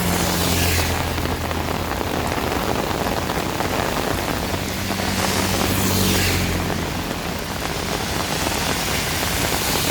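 Heavy rain falling steadily. Twice, about a second in and again around five to six seconds in, a low engine hum and a sweeping swish rise over it, like vehicles passing on the wet road.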